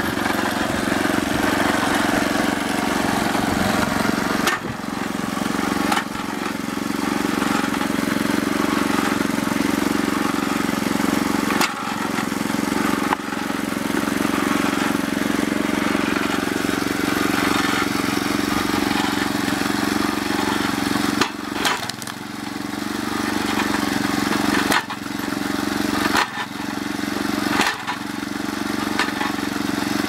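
Small gasoline engine running steadily as it drives a log splitter. Sudden sharp knocks break in several times.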